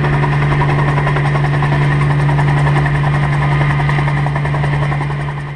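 Bell 47 G2 helicopter running steadily, its piston engine and rotor making a continuous low hum with a fast, even pulsing. The sound fades out at the very end.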